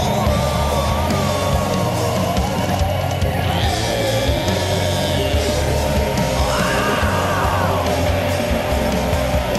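Heavy rock music with a sung melody.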